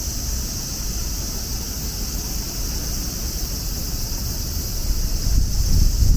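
Strong gusty wind buffeting the microphone as a low, dense rumble, over a steady high hiss; the wind grows louder near the end.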